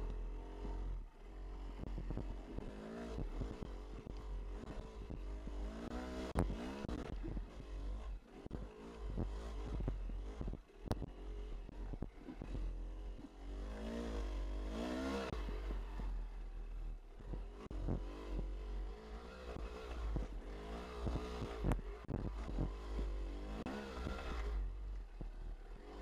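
Yamaha YZ250 two-stroke single-cylinder dirt bike engine revving up and down while riding a rough trail, with frequent knocks and rattles from the bike over the ground. Low wind rumble on the helmet-mounted microphone underneath.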